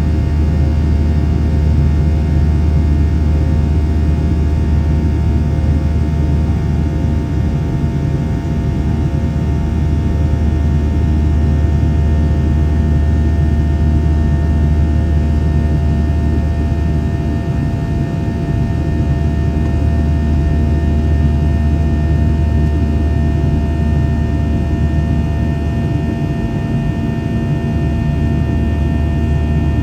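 Cabin noise of a Boeing 737-700 climbing after takeoff: a steady low rumble of jet engines and airflow, with several steady whining engine tones above it.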